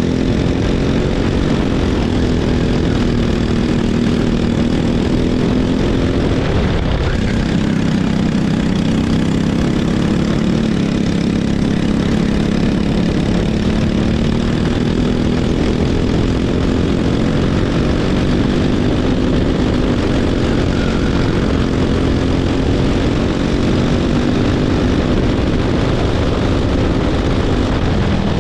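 Racing kart engine running hard, its pitch rising and falling as it works through corners, with a brief drop and climb back about seven seconds in.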